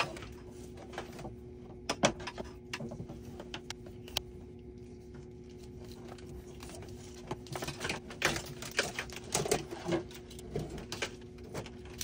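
Scattered clicks and scraping of a fire alarm cable being handled and its outer jacket stripped back by hand. The clicks come singly at first, then bunch up in the last few seconds, over a faint steady hum.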